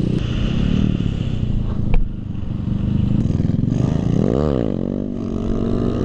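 Kawasaki D-Tracker 150 supermoto's single-cylinder four-stroke engine running under throttle, heard close up from the rider's helmet. There is a sharp click about two seconds in, and the revs rise and fall quickly about four and a half seconds in.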